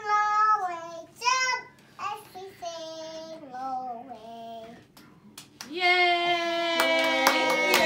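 Young child singing in a high voice, ending on a long held note about six seconds in; hand clapping starts about a second later.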